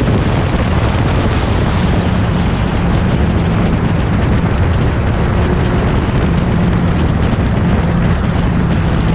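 1960s prototype racing car engines running loud and steady at speed on track.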